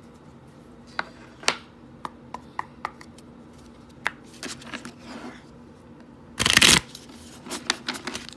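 Tarot cards being shuffled and handled: a string of light clicks and taps, one louder half-second rush of shuffling about six and a half seconds in, and a few more taps near the end.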